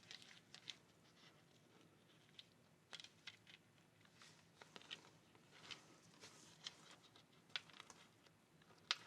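Faint, scattered clicks and rustles of a plastic tablet case and its strap clips being handled.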